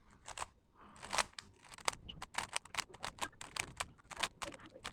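GAN 354M magnetic 3x3 speedcube being turned fast during a timed solve: quick clicks and clacks of the layers, a few at first, then several a second from about two seconds in.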